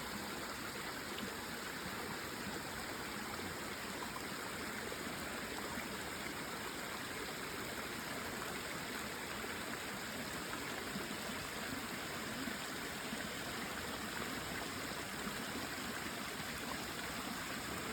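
Small waterfall splashing and rushing steadily.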